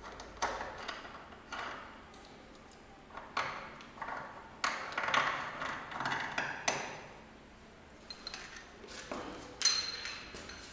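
Scattered metallic clinks and knocks, some with a short ring, as steel tools and bearing-press parts are handled at a motorcycle steering head. The loudest knock comes near the end.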